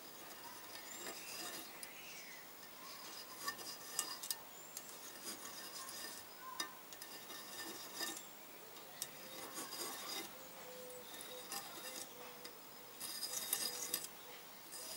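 A small hand tool scraping and rubbing on the edges of a Kawasaki twin-cylinder aluminium block in short, irregular strokes with light clicks, taking burrs off around the bolt holes so the part will seat better. A louder run of strokes comes near the end.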